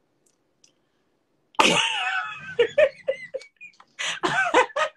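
After a second and a half of near silence, a woman breaks into laughter: one long wavering cry, then a run of short laugh bursts.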